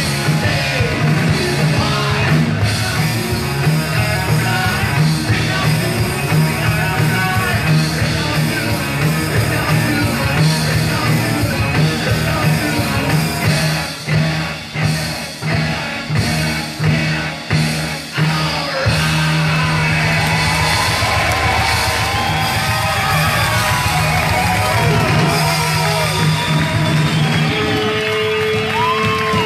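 Live rock band playing: electric guitar, bass guitar and drum kit with a male singer, echoing in a theatre hall. A little past the middle the band hits a run of sharp accents together before settling back into a steady full sound.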